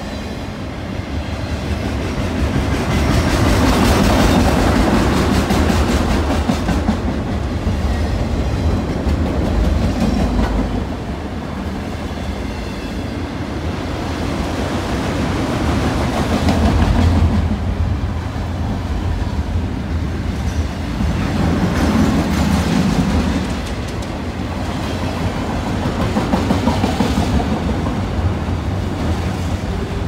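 Freight train's autorack cars rolling past close by: a steady rumble of steel wheels on rail with clickety-clack over the joints, swelling louder several times as cars go by.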